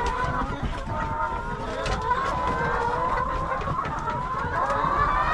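A flock of laying hens calling and clucking together in a steady overlapping chorus, over a low rumble.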